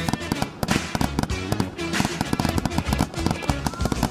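A song with singing plays throughout, with a dense run of sharp fireworks bangs and crackle over it.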